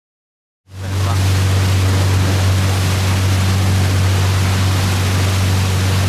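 Boat engine running steadily with a low hum, under a rush of wind and water; it cuts in suddenly just under a second in.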